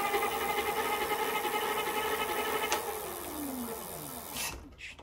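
E-bike's 500-watt rear hub motor spinning the lifted rear wheel under throttle with a steady whine. Near three seconds in there is a click, and the whine falls in pitch and fades out as the wheel coasts down.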